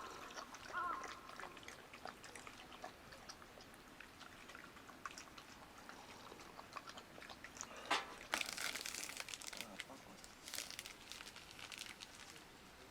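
Crunchy chewing with scattered small clicks, and rustling that comes in about eight seconds in.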